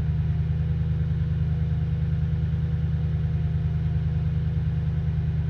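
Toyota Tundra engine idling steadily and evenly with a new fuel pump driver module fitted; the earlier rough idle is gone and it is running good.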